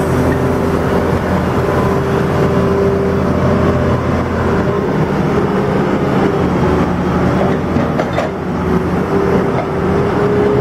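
Case excavator's diesel engine running steadily while it works its hydraulic clamshell grab in the water.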